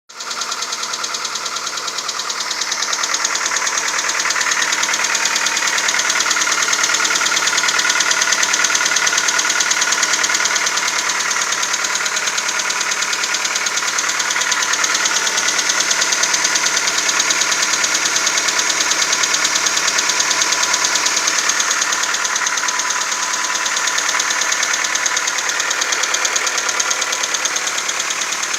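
Volkswagen Golf 4's 1.4 AHW 16-valve petrol engine idling with a fast, steady knocking tick. The owner hears this knock at cold start and asks whether it is a fault or the engine's normal running.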